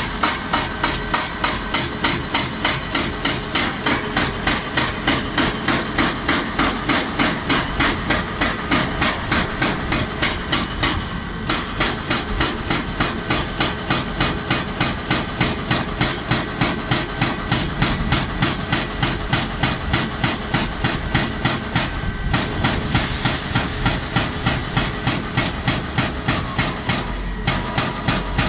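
Hydraulic breaker (rock hammer) on a JCB tracked excavator pounding rock in a fast, even rhythm of about three to four blows a second, breaking off briefly a few times. The excavator's diesel engine runs underneath.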